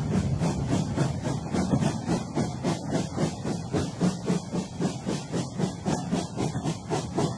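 Steam locomotive chuffing at a steady pace, about four exhaust beats a second, over a constant hiss of steam.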